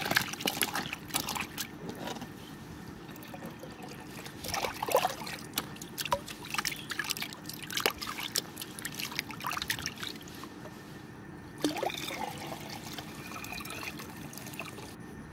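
Water splashing and sloshing in a plastic tub as a hand rubs and rinses stinging catfish. There are irregular small splashes throughout, and near the end the tub is tipped and water pours off.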